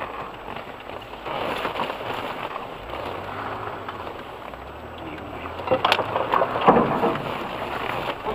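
Off-road 4x4 driving slowly along a muddy, rutted forest track, heard from inside the cabin: a low engine hum under a steady wash of tyre and mud noise. About six seconds in, a few sharp knocks as the vehicle jolts through the ruts.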